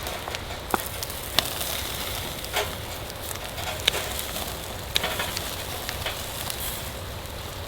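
Firewood burning and crackling, with a few sharp pops scattered over a steady hiss.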